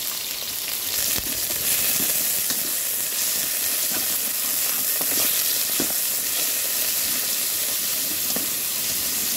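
Pieces of pork sizzling steadily in hot oil in an aluminium pot as they are stir-fried with chopsticks, with a few light clicks of the chopsticks against the pot. The meat is being seared until it firms up, before water goes in for soup.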